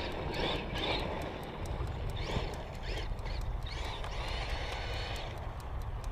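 Electric RC car driving a slalom run, its motor and tyres rising and falling in short bursts as it accelerates and turns, over a steady low rumble.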